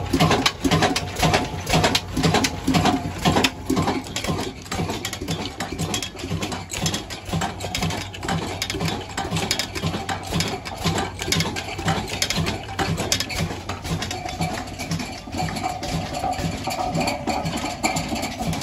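Old 35 HP Hornsby diesel engine running steadily under its flat belt drive: an even, rhythmic beat with mechanical clatter from the belt and pulleys, a little louder in the first few seconds.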